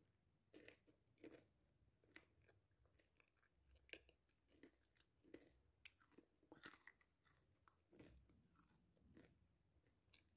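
Faint crunching and chewing of a mini fruit tart with a shortcrust shell, in soft, irregular crunches about once a second.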